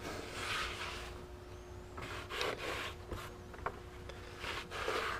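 Shop towel rubbing as it wipes a lawnmower gas cap clean, in a few short wiping strokes.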